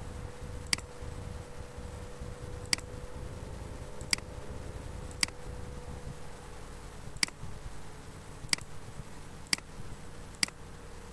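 Computer mouse clicking: eight sharp single clicks, one every second or two, over a faint steady hum.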